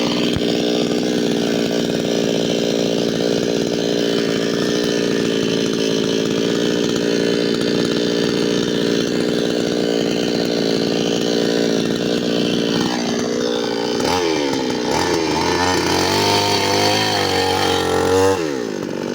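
New West 598X two-stroke petrol chainsaw running steadily at a high, even pitch. About 13 seconds in, its pitch swings up and down several times, then drops near the end.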